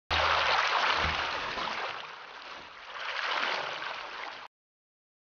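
Water rushing and splashing along the hull of an inflatable kayak under sail, swelling loud, easing off, then swelling again before cutting off suddenly near the end. A low rumble of wind on the microphone sits under the first second.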